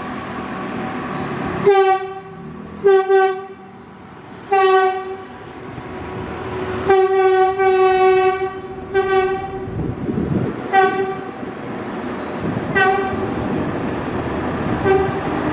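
Horn of the KA Perintis Bathara Kresna train sounding again and again as it runs past on a street-running track: a string of short toots and one long blast of about two seconds near the middle, with the train's running rumble underneath. The horn warns the road traffic moving right beside the rails.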